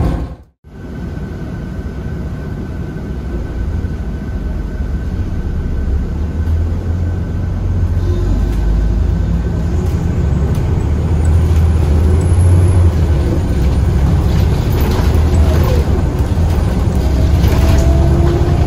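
Scania L94UB bus with a Scania DC9 diesel engine, heard from inside the cabin: a steady low engine rumble with road noise that builds gradually as the bus drives on, after a short break in the sound about half a second in. A faint rising whine comes in near the end.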